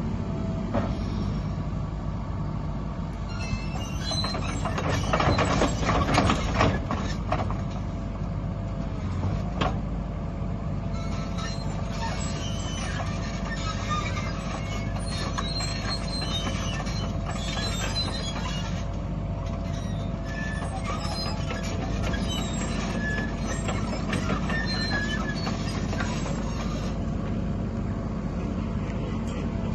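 JCB 50Z mini excavator's diesel engine running steadily while the machine works. Metal squeals and knocks rise to their loudest about five to seven seconds in, and a long spell of clanking and squeaking follows, typical of the tracks and the boom, arm and bucket pins moving.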